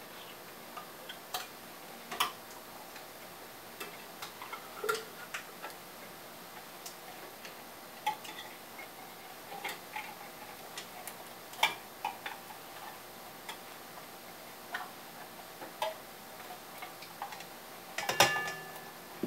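Scattered soft clicks and taps of a utensil against a stand mixer's metal bowl as condensed cream of mushroom soup is scooped into it, at an irregular pace, with a brief clatter near the end.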